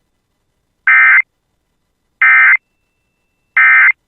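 Emergency Alert System end-of-message data bursts: three short, identical bursts of digital tone, one about every second and a half, the coded signal that closes an EAS warning.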